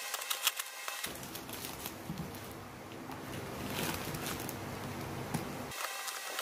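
Plastic wrapping crackling and rustling as it is pulled off a cardboard parcel, with hands handling the box. A crackly first second gives way to a denser, lower rustle, and the crackling returns near the end.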